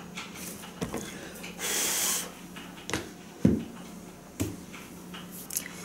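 Hardcover books being handled: a few light knocks and rustles as one book is put away and the next one fetched, with a short hiss about two seconds in.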